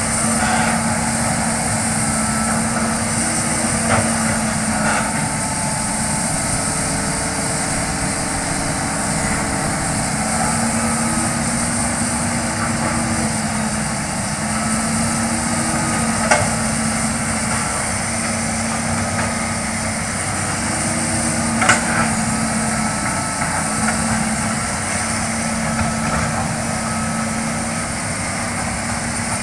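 Hitachi hydraulic excavator's diesel engine running steadily under load while clearing, its hum stepping up and down in pitch now and then. A few sharp knocks stand out, the loudest about 16 and 22 seconds in.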